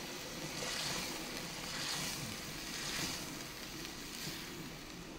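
Vegetable broth sizzling and sloshing in a hot cast-iron Dutch oven as a wooden spoon stirs it, the noise swelling about once a second with the strokes.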